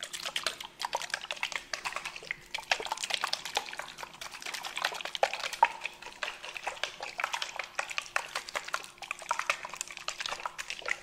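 Close-up wet sounds of shampoo and water being worked by hand: a dense, steady run of small squelches and crackles.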